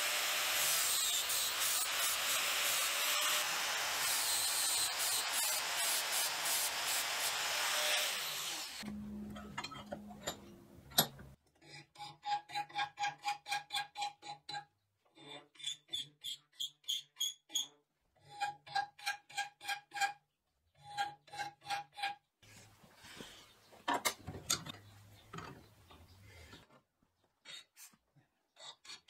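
Steel being scraped and rubbed by hand. First comes a dense, continuous scraping for several seconds, then runs of quick, even strokes at about four to five a second, each with a ringing metallic tone, broken by short pauses.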